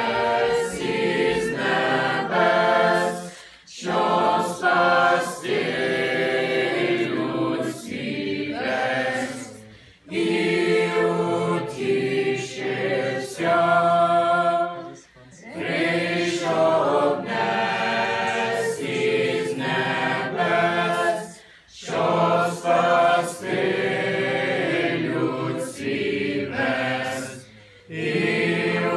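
A choir of children and teenagers with a few adults singing a Ukrainian Christmas carol unaccompanied, in phrases of five to six seconds separated by short breaks for breath.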